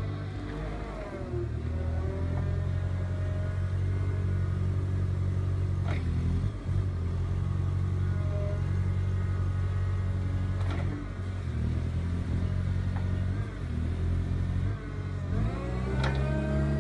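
Linde H18T LPG forklift engine running under hydraulic load, its speed rising and falling several times and climbing near the end as the 180° box-rotator attachment is turned and lifted. A few short clunks come through, about six, eleven and sixteen seconds in.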